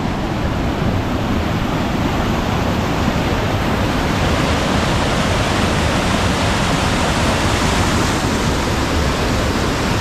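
Waterfall: a steady, full rush of falling water, growing a little louder over the first few seconds and then holding steady.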